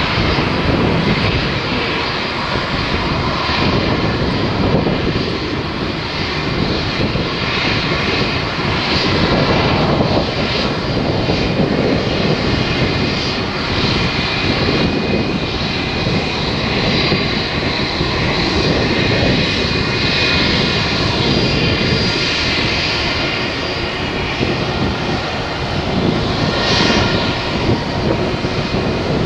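Turbofan engines of a taxiing twin-jet Airbus A319 at low taxi power: a steady rushing engine noise with a thin high whine over it.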